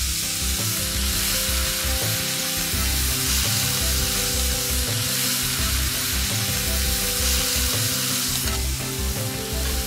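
Chopped onions, ginger-garlic paste and tomato paste sizzling steadily in hot oil in a wok as the masala is fried and stirred with a wooden spatula.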